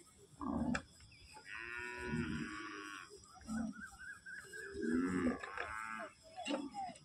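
Kankrej cattle mooing: one long call about a second and a half in, then a shorter one about five seconds in.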